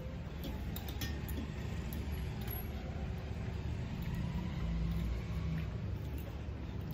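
A steady low rumble, with a few light metallic clinks in the first second as hands mix rice and curry on steel plates.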